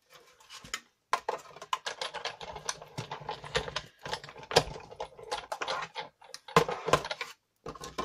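Sizzix Big Shot die-cutting machine hand-cranked, rolling a sandwich of acrylic cutting plates with a stitched-shapes framelit die through its rollers and back. From about a second in comes a dense run of crackling clicks, which is normal for the plates under pressure and not a sign of anything breaking.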